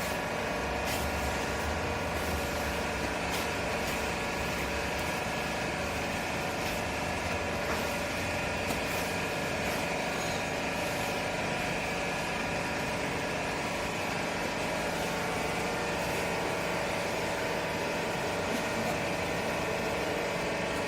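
Vertical baler's hydraulic power unit running steadily: a machine hum made of many steady tones, with a low rumble for the first several seconds that then eases off.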